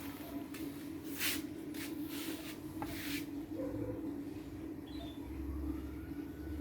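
Home-built CNC machine running with a steady hum, with several short noisy bursts in the first three seconds, then quieter.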